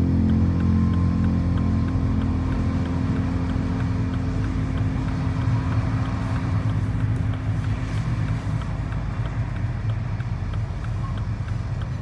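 Steady engine and road rumble heard from inside a moving car, with faint regular ticks throughout. A held music chord fades out over the first few seconds.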